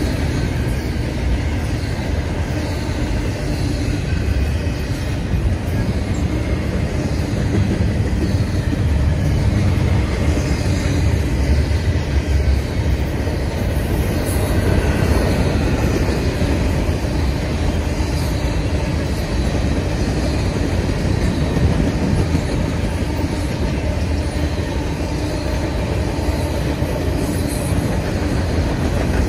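CN freight train's double-stack container cars and covered hopper cars rolling past: a steady, loud rumble of steel wheels on rail. A faint high wheel squeal comes and goes.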